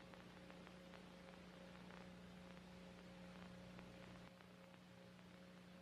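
Near silence with a faint steady electrical hum and a few faint ticks.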